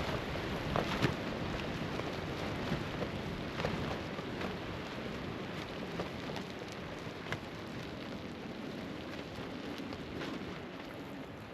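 The wind of a passing dust devil rushing through a desert camp, with scattered sharp ticks of blown grit and debris striking things, slowly easing off toward the end.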